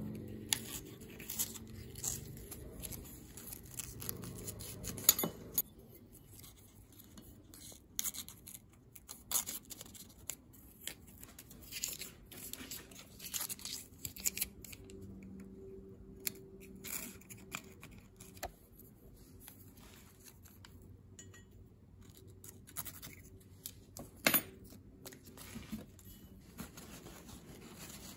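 Close hand work on a steel pipe wrench: a razor blade trimming blue painter's tape and tape being pulled and torn, heard as scattered sharp clicks and scrapes. The loudest clicks come about five seconds in and again about four seconds before the end.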